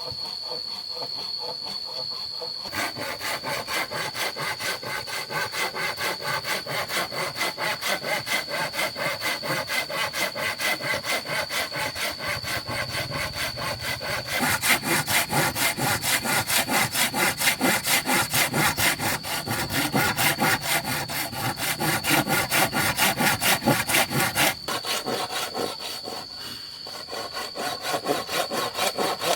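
Hand saw cutting through bamboo in steady back-and-forth strokes, about two a second. The sawing starts about three seconds in, gets louder around halfway, and pauses briefly near the end. A thin, steady high-pitched tone runs underneath throughout.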